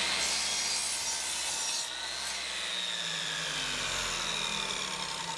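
Electric miter saw running at speed with a high whine, its blade cutting a 10-degree angle through two clamped wooden 1x4 boards. The sound drops in level about two seconds in.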